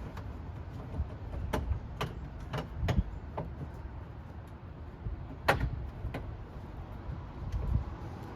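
Irregular plastic clicks and knocks over low rubbing and handling noise, as a hand works behind a front bumper trying to twist and pull out a stuck turn-signal bulb socket. The sharpest knock comes a little past halfway.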